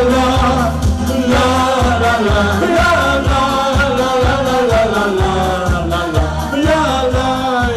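Live party music: two male singers singing a Dutch party song into microphones over a steady, fast dance beat.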